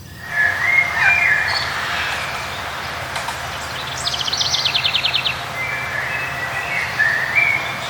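Forest birds singing: several birds give short whistled calls, and about four seconds in one gives a fast, evenly spaced trill lasting just over a second. A faint steady low hum runs underneath, and the sound drops out briefly at the very start.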